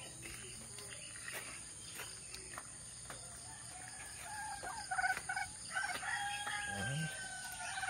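A rooster crows: about five seconds in a call starts in short broken notes, then runs into one long held note that ends near the end. Before that only faint clicks.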